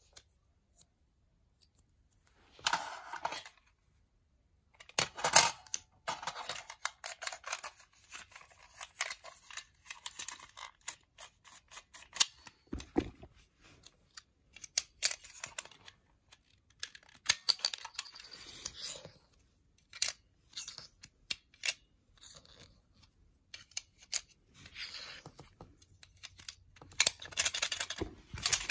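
Hard plastic clicks, snaps and rattles from a toy mini-disc shooter and its small plastic discs being handled and shot, coming in clusters with short gaps. There is one heavier knock about 13 seconds in.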